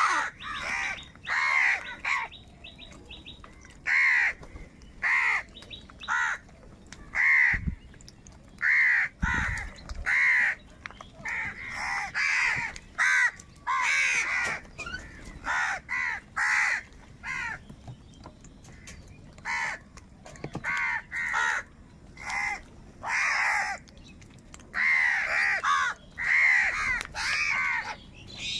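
A flock of house crows cawing, short harsh calls following one another in quick succession, several birds at once and sometimes overlapping, with a few brief lulls.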